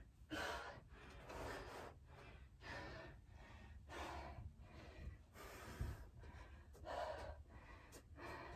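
A person breathing hard and faint, about one breath a second: panting to recover after an interval of explosive plyometric jumping jacks.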